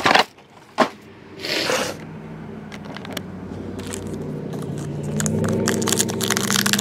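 Foil trading-card pack wrappers being torn and crinkled open: a sharp rip at the start, a click, and another crinkling tear in the first two seconds. Then a low steady hum slowly grows louder.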